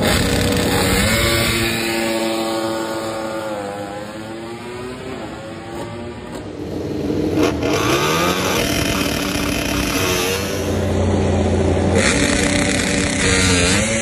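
Several MotoGP race bikes' 1000 cc four-cylinder engines held at high revs for practice starts, their pitches rising and falling against each other. About halfway through, one bike launches away and its pitch climbs quickly.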